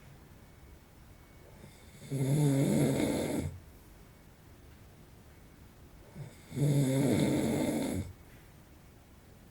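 A man in his forties snoring in his sleep: two snores about four and a half seconds apart, each lasting about a second and a half, with near quiet between them.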